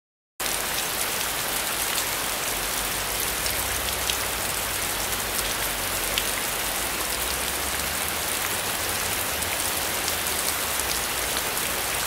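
Steady rain, a dense spray of small drops hitting a surface, starting suddenly about half a second in and holding an even level.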